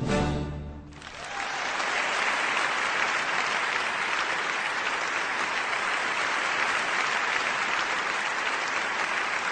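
The orchestra's final notes die away in the first second, then a theatre audience breaks into steady, full applause.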